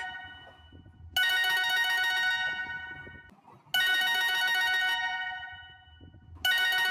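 Huawei phone ringtone playing: a bright bell-like ring that starts sharply and fades away, repeating about every two and a half seconds, three times.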